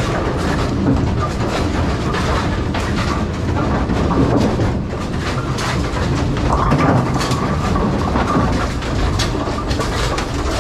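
AMF 82-30 bowling pinsetter running: a loud, continuous mechanical clatter of many rapid knocks and rattles, with a steady high hum joining about six and a half seconds in.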